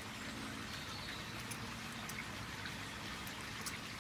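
Steady outdoor background noise with a few faint, light clicks from a small folding canister stove being handled in the fingers.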